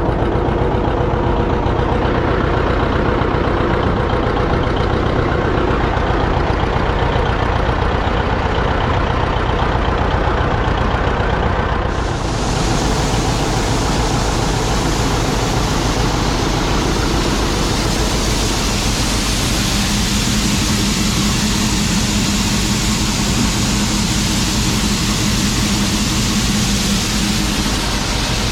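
A farm machine's engine running steadily at idle with a regular low pulse. About twelve seconds in it gives way abruptly to a steady rushing hiss, with a low hum joining in the later part.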